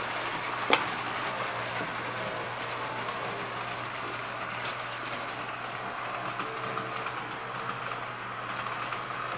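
S-gauge model trains running around a loop of track: a steady rolling rattle of wheels on the rails with motor noise, over a steady low hum. One sharp click sounds just under a second in.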